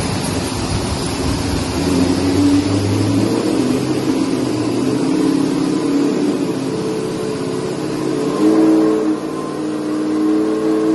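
A 2008 Pontiac G8 GT's 403-cubic-inch LS stroker V8, breathing through Kooks headers and Corsa mufflers, running loud and steady under load on a chassis dyno, its note climbing slowly in pitch.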